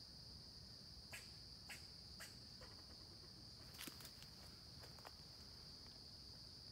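A steady, high-pitched chorus of insects, crickets by their sound, droning without a break. Over it come a handful of soft crunches of footsteps on dry leaf litter, scattered through the first five seconds.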